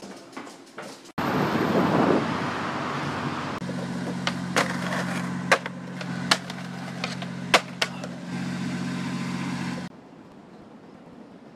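Wind and street noise, then skateboard clacks and landings on concrete: about six sharp cracks over a steady low hum, then a faint hiss.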